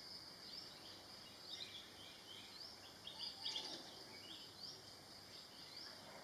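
Faint forest ambience: a steady high-pitched insect drone, with many short, rising bird chirps that cluster in the middle.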